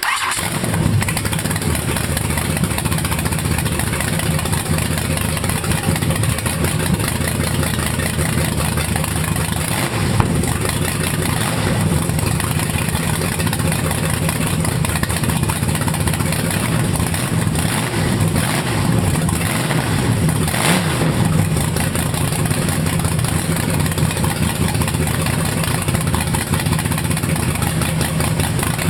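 Supercharged 540 big-block Chevrolet V8 with twin 850 Holley double-pumper carburettors firing up and running on an engine stand, idling steadily with a few short throttle blips, around ten and twenty seconds in. The owner calls it very healthy and very throttle responsive.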